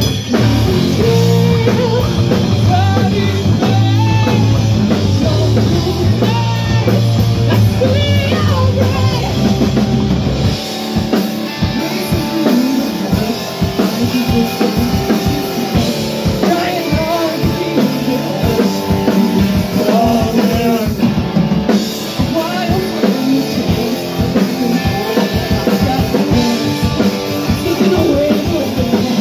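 Hard rock band playing live: singing over electric guitar, bass guitar and drum kit. About ten seconds in, the sustained low chords drop out and the band switches to a choppier, stop-start rhythm under the voice.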